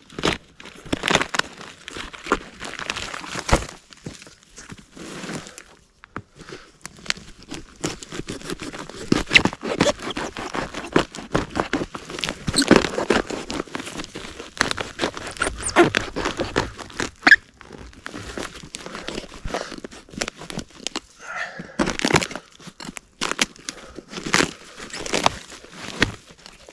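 Knife cutting, scraping and prying into a rotten birch log: birch bark tearing and crumbly rotten wood crunching, in irregular bursts of scrapes and cracks.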